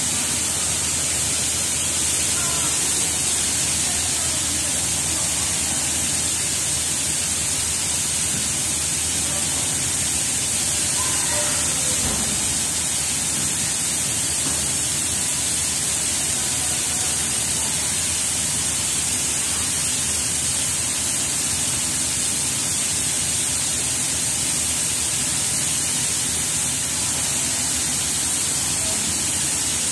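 Factory machinery running in a hall of wire-spooling machines: a steady, unchanging hiss with a high, bright edge on top.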